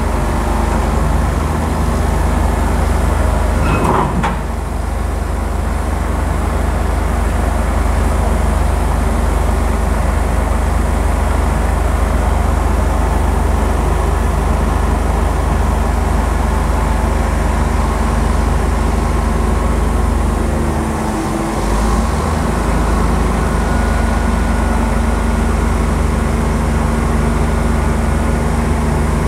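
Komatsu PC1250 hydraulic excavator's diesel engine running steadily and loudly, with one short sharp sound about four seconds in.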